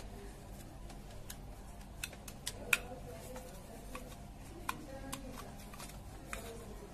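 Scattered small plastic clicks and snaps as a screwdriver pries at the clips of an air cooler water pump's plastic impeller cover and gloved hands twist the cover off. The sharpest snap comes a little under three seconds in.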